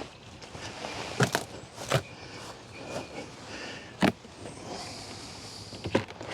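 Four sharp knocks and clicks of wooden hive frames and boxes being handled, spaced a second or two apart, over a low steady background.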